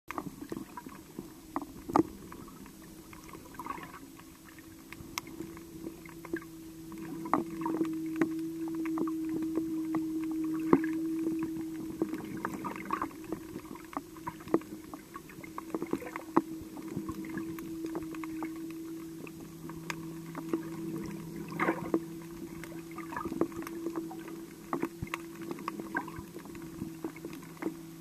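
Muffled underwater sound picked up by a camera under the surface: a steady low hum, louder for a few seconds about a third of the way through, with scattered sharp clicks and knocks.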